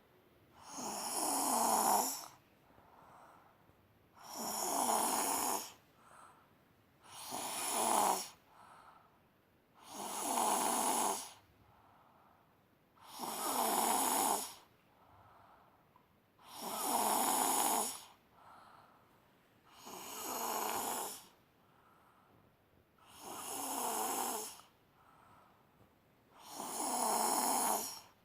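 Snoring: about nine loud snores, evenly spaced roughly three seconds apart, with fainter breaths between them.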